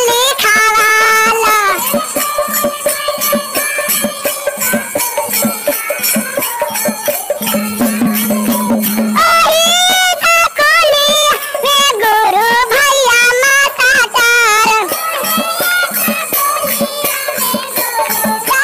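Bhojpuri jhumar devotional song: a wavering, ornamented lead melody over fast, steady percussion with jingling.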